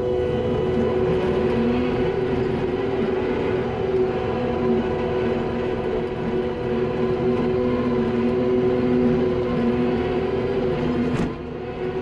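Skid steer's diesel engine running steadily under load as it drives a hydraulic power rake through dirt, heard from inside the cab as a steady drone with a whine. Near the end there is a short sharp click and the sound briefly drops in level.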